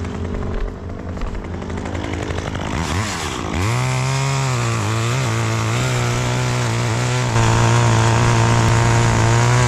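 A small engine revs up sharply about three and a half seconds in and holds at high, steady speed, growing louder again about seven seconds in.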